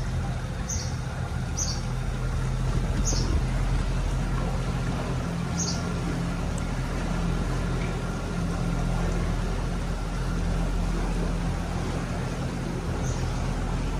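Steady low hum of a small canal boat's motor under way, with a faint steady whine. A few short high chirps from a bird sound over it in the first six seconds and once more near the end.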